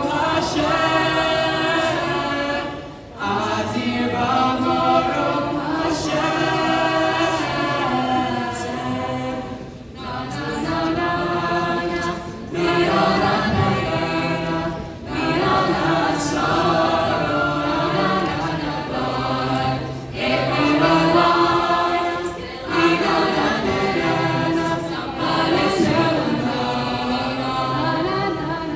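Mixed-voice student choir of sopranos, altos, tenors and basses singing a medley a cappella through a PA system, in phrases broken by short pauses.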